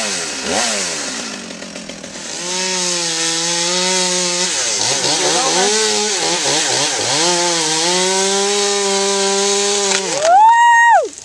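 Chainsaw cutting through a pepper-tree limb, its engine pitch wavering and dipping twice as the chain bogs in the wood. Near the end it revs sharply higher and then stops.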